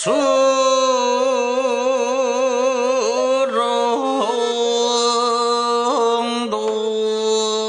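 Jeongga, Korean classical lyric singing: a man's voice holds long, slow notes with a wide, wavering vibrato, moving to a new pitch about three, four and six and a half seconds in.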